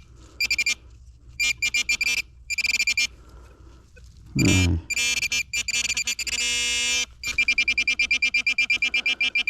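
Metal detector beeping over a dug-up target: high electronic beeps in short bursts, holding one steady tone briefly, then pulsing quickly at about four beeps a second. A short low grunt-like voice sounds about halfway through.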